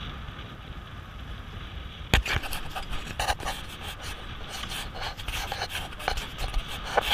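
Steady wind and water hiss, then a sharp knock about two seconds in, followed by irregular rubbing and scraping as a jacket sleeve brushes and handles the action camera's housing close to its microphone.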